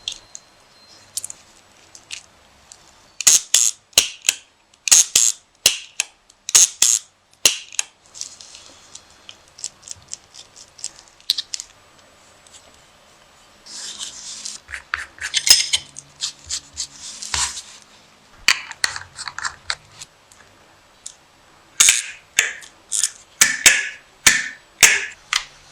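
Irregular sharp clicks and snaps, some in quick groups, with a few seconds of rustling hiss about halfway through.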